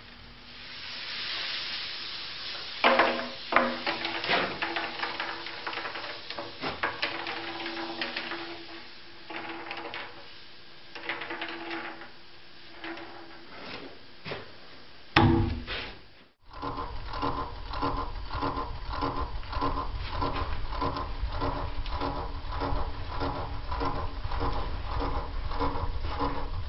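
Sandpaper rubbing on a large wooden turning spinning on a wood lathe, with scattered knocks over the lathe's steady motor hum. After a sudden break about two-thirds of the way in, a machine runs on with a steady pulse about twice a second.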